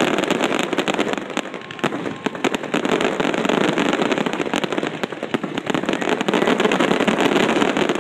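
Fireworks display going off in a dense, continuous barrage: many rapid bangs and crackles overlapping without a break.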